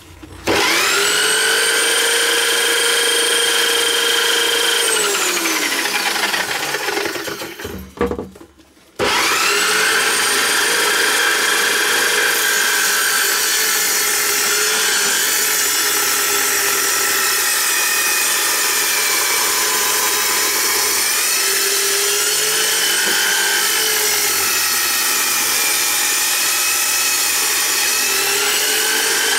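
Homemade table saw, an electric drill in a drill stand spinning a Bosch circular saw blade: it starts with a rising whine, runs steady, then winds down with a falling pitch. It starts again about nine seconds in and cuts through a board, the whine dipping in pitch now and then as the blade takes the load.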